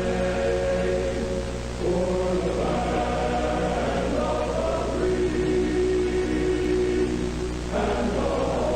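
Choral music: a choir-like sound holding long sustained chords that change about every three seconds, over a steady low drone.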